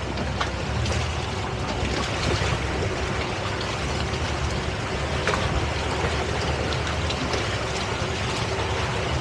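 Boat engine running steadily under way, with water rushing and wind noise.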